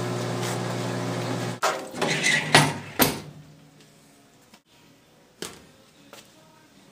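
The parts washer's small electric pump hums steadily, then shuts off abruptly about a second and a half in. A quick run of knocks and rattles follows, then it goes quiet apart from a couple of faint clicks.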